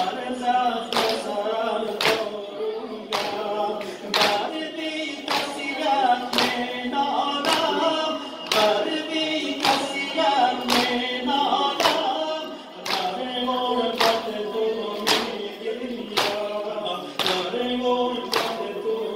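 A group of men chanting a Shia mourning lament (noha) in unison, led by a reciter, while beating their chests together in time: a sharp, regular beat about once a second under the chant.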